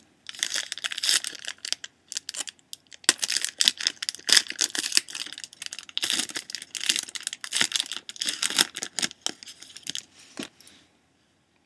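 Hockey card pack wrappers being torn open and crinkled by hand, in crackly rustling bursts with sharp clicks, a short pause about two seconds in, and stopping near the end.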